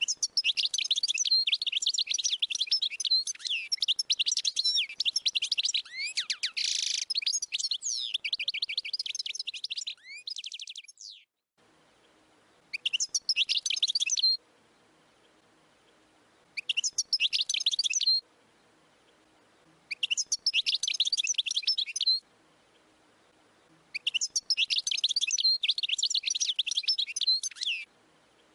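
European goldfinch singing: about ten seconds of rapid, high twittering with a harsher note near the middle, then four shorter bursts of song separated by pauses of a couple of seconds.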